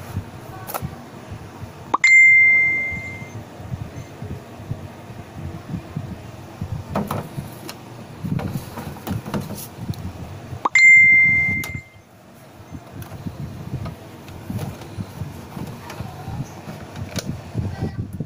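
Polaroid Supercolor Esprit instant camera fired twice, the second time about nine seconds after the first. Each press of the shutter button gives a click followed by a steady high whine from the camera lasting just over a second. Low handling rumble and small knocks sound in between.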